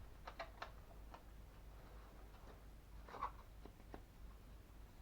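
A few faint clicks and taps from parts of a disassembled microwave oven being handled, with a cluster about three seconds in, over a low steady hum.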